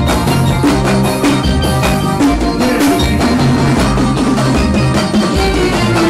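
A live band with accordion, electric guitar, bass guitar, drum kit and hand percussion playing loudly to a steady beat.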